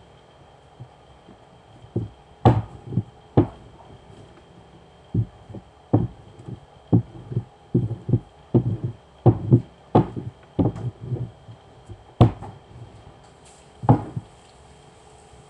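Dough being worked with a wooden rolling pin and hands on a counter: irregular soft thumps and sharper knocks, sometimes several a second, with gaps between.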